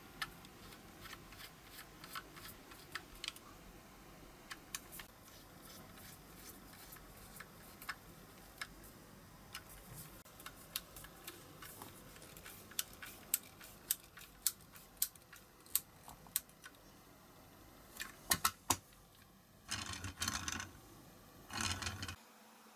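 Small irregular clicks of a precision screwdriver turning small screws into the metal baseplate of a die-cast toy car. Near the end come two short rasps, about half a second each, as the model car's wheels roll across a cutting mat.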